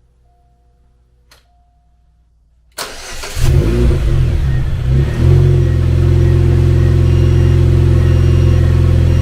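Chevrolet Cobalt SS's supercharged 2.0-litre LSJ four-cylinder cranking briefly about three seconds in, catching with a rev, then settling into a steady idle. This is a successful start despite an intermittent no-start fault that the owner suspects is weak spark, with the crank sensor his next suspect.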